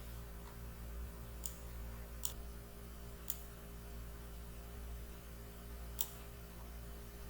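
Four separate sharp clicks of a computer keyboard or mouse, spaced irregularly, over a steady low hum.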